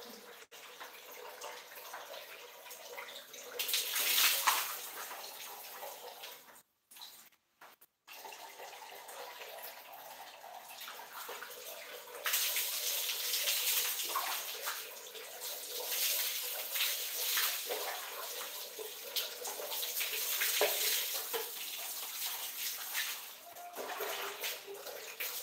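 Water running from a tap into a plastic bucket, with louder splashing when water is scooped and poured from a dipper over the head. The sound cuts out briefly about seven seconds in.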